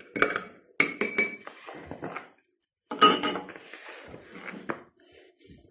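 Kitchen bowl and utensils clinking and knocking while dough is mixed by hand. There are several sharp clinks, each with a brief ring, in the first second and a half, and a louder cluster about three seconds in.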